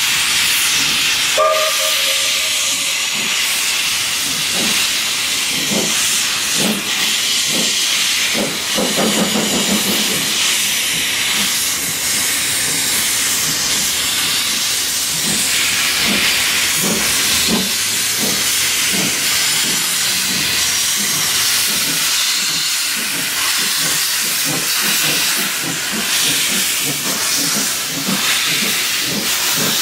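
Steam locomotives working out of sight: a short whistle about a second and a half in, then a steady loud hiss with many faint, uneven exhaust beats under it.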